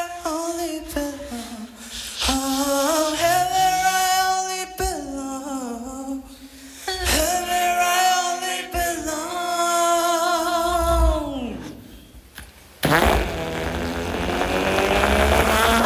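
Beatbox crew singing a slow harmonized a cappella passage on stage, several voices holding long notes together with sliding endings. About 13 s in, a sudden loud wall of sound with heavy bass cuts in.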